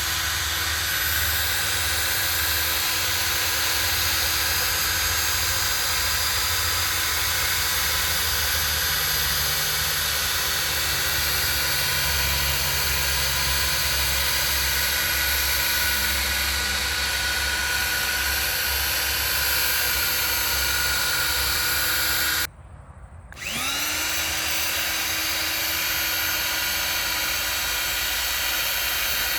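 Powered ground-screw driving machine running steadily as it turns a helix ground screw into the ground. The sound cuts out for under a second about two-thirds of the way through, then picks up again.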